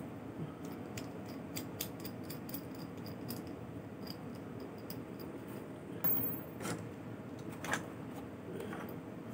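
Small aluminium clutch parts handled in the hands, giving faint scattered clicks and metal ticks over a steady low room hum. A couple of louder knocks and rustles come about six and seven and a half seconds in, as a hand goes into the cardboard box.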